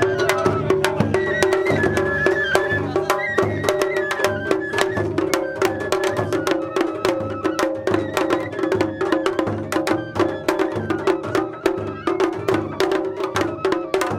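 Festival float hayashi: shime-daiko and a large barrel drum beaten rapidly with wooden sticks in a dense, continuous rhythm of sharp strokes. Above the drums runs a steady melodic line, most likely a bamboo festival flute.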